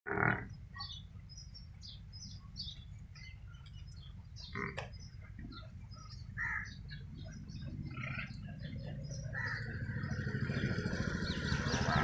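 Small birds chirping in many short, scattered calls over a low, pulsing engine rumble that grows louder over the last few seconds.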